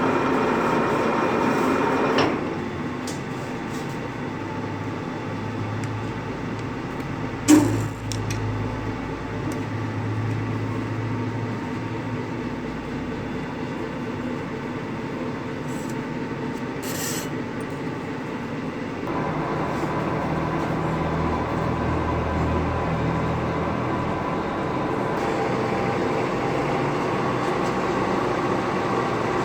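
Lathe running as it winds resistance wire into a heating-coil spring: a steady machine hum with a sharp clank about seven and a half seconds in. The running sound shifts about two seconds in and again about nineteen seconds in.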